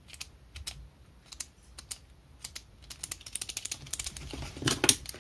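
Pentel Calme ballpoint pen being clicked: its quiet knock mechanism gives soft clicks in pairs, press and release, about every half second, then clicks much faster and louder from about three seconds in. The knock is built to be quiet, with knock noise cut by 66% against conventional pens.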